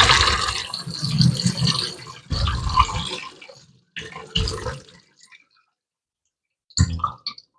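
Salt water and soaked pumpkin seeds poured from a stainless steel bowl into a metal colander over a stainless steel sink, draining off the brine: a loud rushing splash that fades over about two seconds, then two or three shorter splashes.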